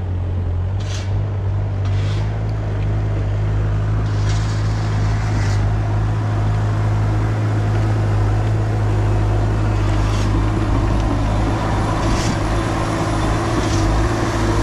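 ASV RT-60 compact track loader's diesel engine running steadily under load as the machine crawls over a road of laid logs, with a few short knocks scattered through.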